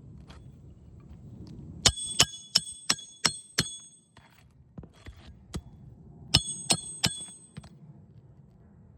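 Roofing nails being driven into an asphalt shingle with a hatchet: two quick runs of sharp, metallic ringing strikes, about six in the first and four in the second a few seconds later, with a few lighter taps between. This is the shingle being nailed back down during a repair.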